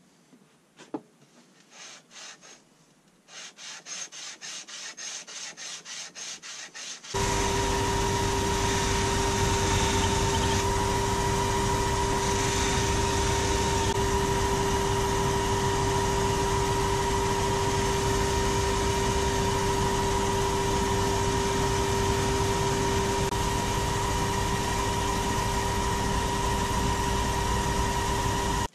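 A ratchet head rubbed back and forth on an abrasive board, about four strokes a second. Then a belt-driven polishing wheel begins suddenly and runs with a steady, loud hum while the chrome ratchet is held against it to polish it, cutting off suddenly at the end.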